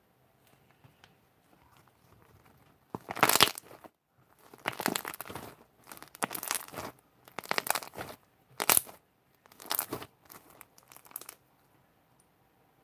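Fluffy white slime being stretched and squeezed in the hands, making a series of about eight short squishing noises that start about three seconds in, the first the loudest.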